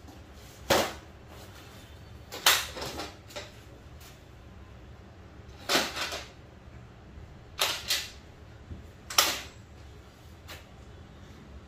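Sharp clacks and knocks of a folding metal projector-screen frame as its rails are handled, opened out and set down on a tiled floor, coming in irregular ones and twos several seconds apart.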